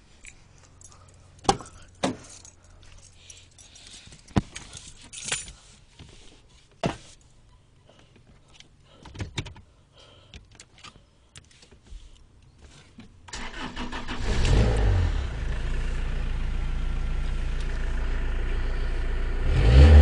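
Scattered clicks and knocks of a car door and handling in the cabin, then about two-thirds of the way through a Vauxhall Corsa's diesel engine cranks and starts from cold at the press of a push-button start, settling into a steady idle. It briefly gets louder near the end.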